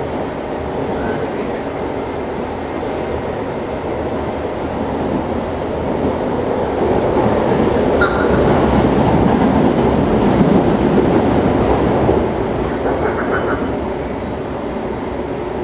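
Interior running noise of an SMRT C651 metro train under way: a steady rumble that grows louder from about six seconds in and eases off again about twelve seconds in.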